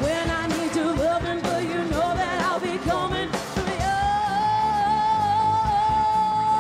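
Live rock band playing with lead vocals: a sung melody line over the band, then a long held high note from about four seconds in.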